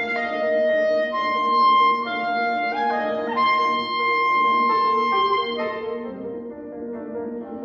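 Clarinet playing a melody of held high notes over piano accompaniment, growing softer about six seconds in.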